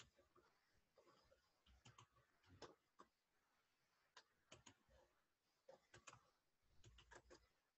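Near silence with faint, irregular clicks, several coming in quick pairs or threes.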